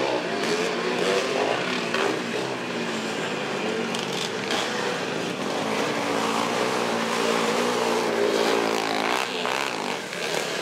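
Several vintage motocross motorcycles racing at once, their engines revving up and down through the gears over and under each other.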